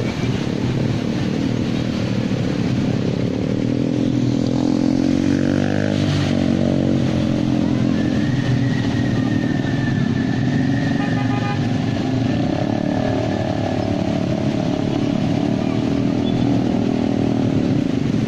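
Small motorbike engines running as they ride through shallow floodwater, one revving with a rising and falling pitch about four to seven seconds in.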